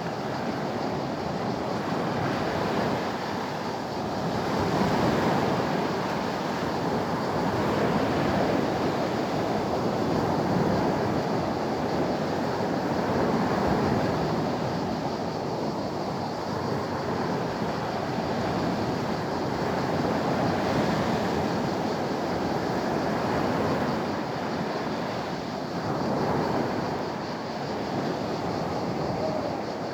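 Sea waves washing onto the shore in a continuous rush that swells and eases every few seconds, with some wind on the microphone.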